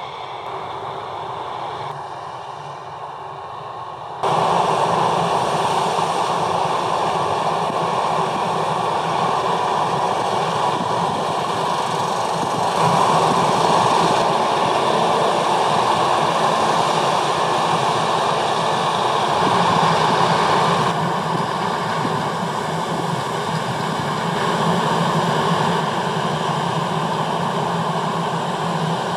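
New Holland CR 8.90 combine harvester running steadily while harvesting wheat, a dense mechanical rushing noise from the engine and threshing works. It jumps sharply louder about four seconds in.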